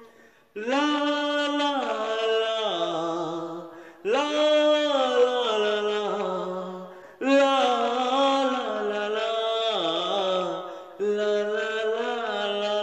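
A man singing unaccompanied into a small handheld megaphone. He sings four long phrases of held and sliding notes, each starting sharply after a brief break.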